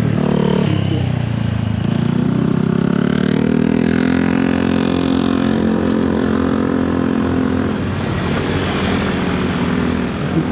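Yamaha SRX400's air-cooled single-cylinder engine running under way, its revs dipping briefly at the start, then rising steadily for several seconds and easing off near the end.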